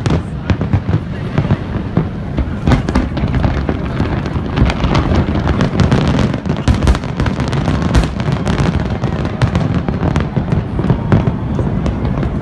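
Large fireworks display: many overlapping bangs and pops in quick, irregular succession over a continuous low rumble.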